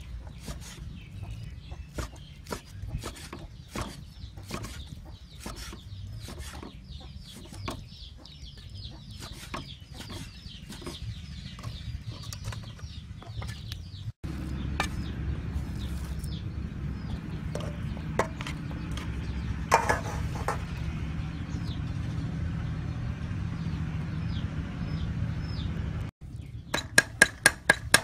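Meat cleaver cutting raw pork on a round wooden chopping board, irregular knocks, with chickens clucking and small birds peeping in the background. Near the end the cleaver chops fast and evenly on the board, about four strokes a second, mincing.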